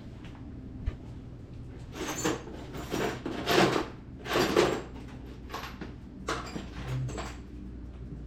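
Rummaging through a drawer or parts bin for a washer: a series of short scraping clatters, busiest between about two and five seconds in, over a steady low hum.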